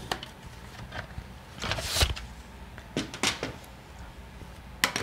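Cardstock card base being scored and handled: one drawn scraping stroke about two seconds in, with several sharp clicks and taps of the paper and tool.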